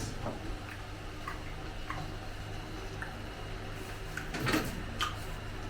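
Quiet eating sounds: a scattering of light clicks and taps from dishes, with a slightly louder one about four and a half seconds in, over a faint steady hum.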